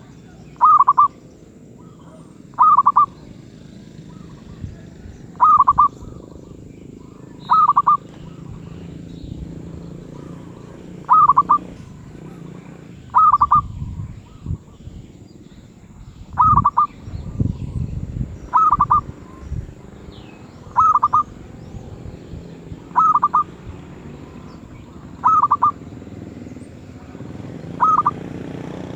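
A medium-voiced zebra dove (merbuk) cooing, giving short calls about every two seconds, each a quick rippling phrase.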